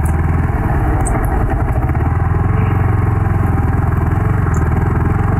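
Yamaha R15 V3's single-cylinder engine running steadily while the bike is ridden along a rough road.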